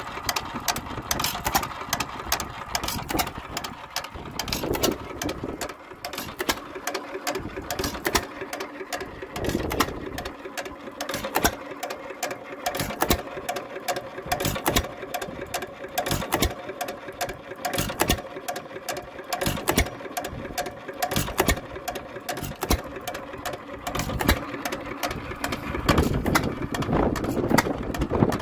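A 1 3/4 hp Economy single-cylinder hit-and-miss engine running, a rapid clatter of clicks from its valve gear and igniter, with louder low thuds swelling and fading every several seconds.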